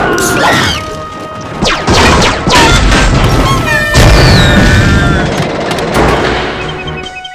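A loud jumble of cartoon sound effects over music: booms and crashes hitting several times, with sliding whistles and held tones between them.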